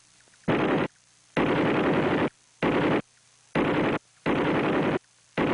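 Machine gun firing in bursts of automatic fire: six bursts with short pauses between them. The two longest last about a second each.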